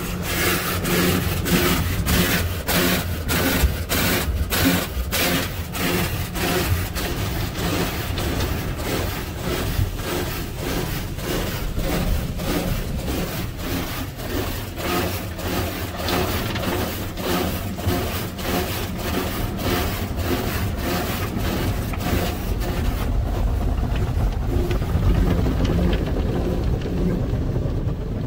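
Cloth strips of an Autec AES-425 car wash's spinning soft-touch brushes slapping the car body and glass, heard from inside the car. The slaps come in a steady rhythm of about three a second over a low rumble.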